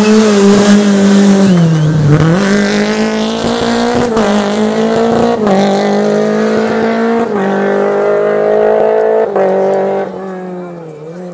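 Rally car's engine under hard acceleration, its pitch rising and dropping back in steps as the driver changes gear. It is loud for most of the stretch, then fades away near the end as the car moves off.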